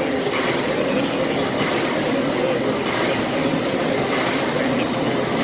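Steady, loud engine din of tractors driving into a large hall, echoing, with no breaks.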